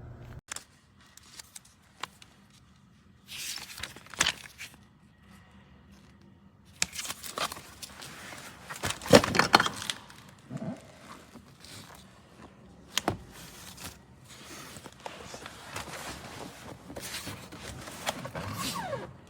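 Plastic parts of a high-back car booster seat being handled: scattered clicks and knocks with rubbing and scraping, a louder stretch of clatter near the middle and a sharp click a few seconds after it.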